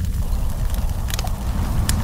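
Wood fire of sticks and branches burning, with a few sharp crackles and pops over a steady low rumble.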